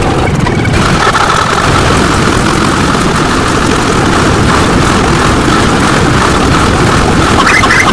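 Loud, dense stack of layered sound effects under a steady engine-like rumble. Rapid chirping pulses, about five a second, join in near the end.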